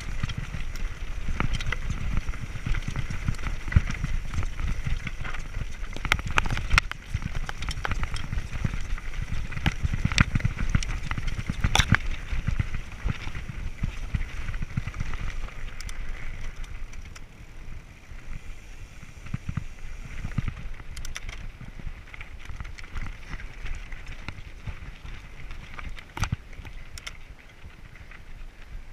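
Mountain bike clattering over a loose rocky trail: tyres crunching on stones, with sharp knocks and rattles from the frame and chain at each bump over a low rumble. The clatter thins out and gets quieter in the last third as the ground smooths to dirt.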